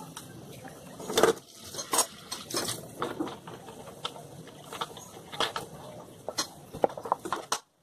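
Kitchen utensils being handled at a sink: scattered, irregular clinks, taps and knocks of a metal knife and a plastic bottle against the counter and dishes. The sound cuts off suddenly near the end.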